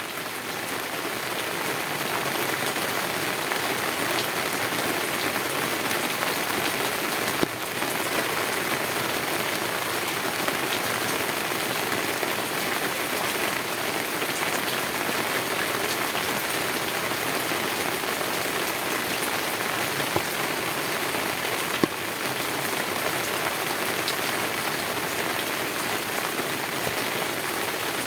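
Heavy rain drumming steadily on a tin roof, a dense even patter with a few sharper drop impacts standing out now and then. The sound fades up over the first couple of seconds.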